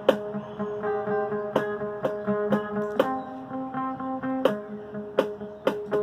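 Instrumental guitar music: plucked notes repeating in a melodic pattern, with a sharp percussive knock every second or so.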